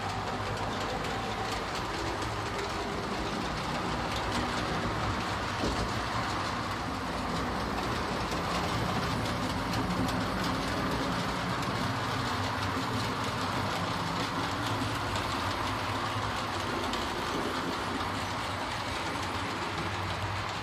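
HO scale model trains running on their track: a steady rolling rattle of small wheels on rails with a low electric motor hum underneath.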